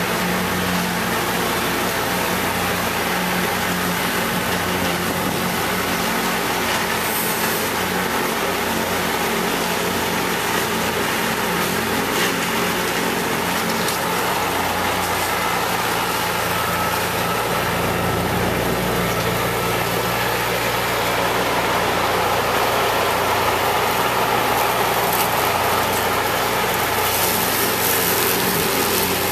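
Kubota L3400 compact tractor's three-cylinder diesel engine running steadily while its PTO-driven rear rotary cutter mows through tall weeds and grass. The sound holds steady throughout and grows slightly louder in the last third.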